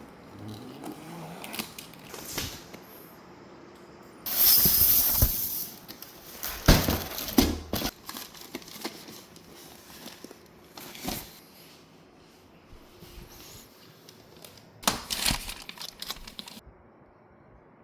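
Packaging being torn open and handled: a loud tearing lasting about a second starts about four seconds in, followed by crinkling and scattered knocks.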